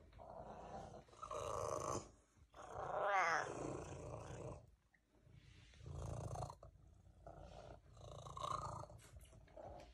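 Ginger domestic cat purring very loudly, in rough one-second bursts with a short pause at each breath, and a short falling call from the cat about three seconds in.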